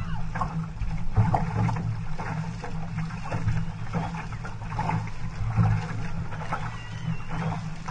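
Outrigger canoe moving under paddle: water rushing past the hull, with repeated splashes of paddle blades entering the water.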